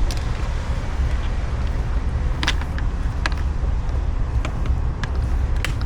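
A few sharp plastic clicks as electrical connectors of a car door's wiring harness are pushed into their sockets, over a steady low rumble.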